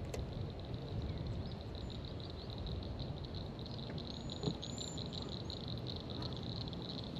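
Frogs calling in a steady, high, pulsing chorus, with a few short bird chirps about four seconds in, over a low rumble of wind.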